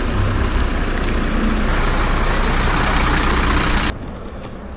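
Steady motor-vehicle noise, a low rumble under a broad hiss, that cuts off suddenly near the end, leaving a quieter background.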